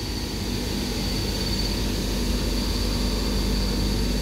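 Departing regional train with its Trenitalia E464 electric locomotive pushing from the rear: a steady high whine over a low hum and rolling noise, growing slightly louder as the train starts off.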